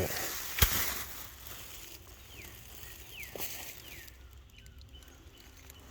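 A single sharp knock about half a second in, then faint bird calls: four short whistles that each slide downward in pitch.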